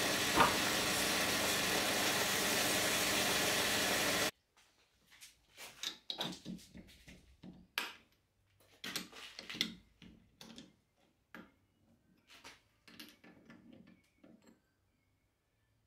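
Metal lathe running steadily with a hand tool held to the spinning steel lid disc, with a brief squeal just after the start; the running noise cuts off suddenly about four seconds in. Then scattered metallic clicks and knocks come from the chuck key and jaws of the four-jaw chuck being loosened.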